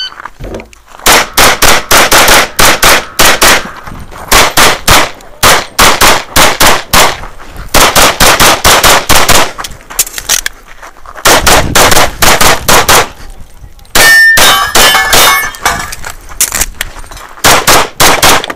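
Fast strings of pistol shots from an Open-division race gun, a compensated pistol with a red-dot sight, each string several shots long with short pauses between. Steel targets ring when hit, most clearly about two-thirds of the way through.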